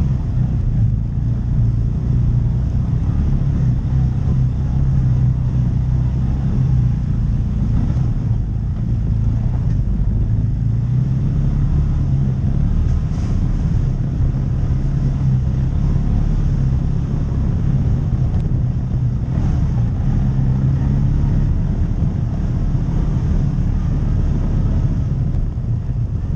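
Side-by-side UTV engine running at a steady low drone while driving a dirt trail, with rumble from the tyres and chassis over the rough ground.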